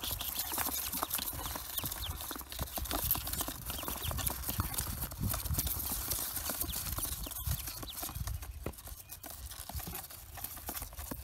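A box of newly hatched Pekin ducklings scrambling about, their feet pattering and scratching on the cardboard in quick clicks, with high peeps among them.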